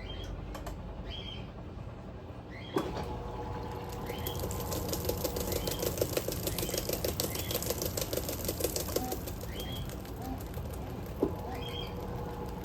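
Electrolux LM08A top-load washing machine running: a click about three seconds in, then the motor's hum and a fast rhythmic churning as the dual-action agitator works the wet towels, with another click near the end.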